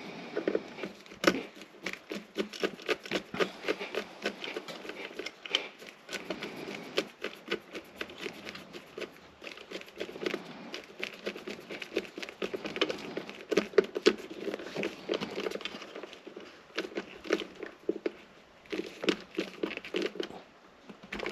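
Hands working wires and small parts to make an electrical splice: a continuous run of crinkling, crackling and small sharp clicks, coming in clusters.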